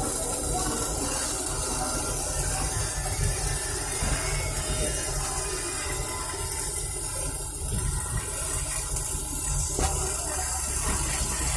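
Steady rain falling, a continuous even hiss of water without pause.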